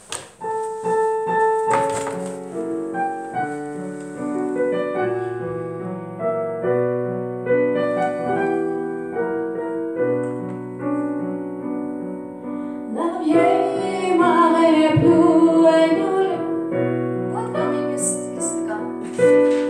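Digital piano playing a song's opening accompaniment in sustained chords. About 13 seconds in, a young woman's singing voice with vibrato comes in over the piano and becomes the loudest sound.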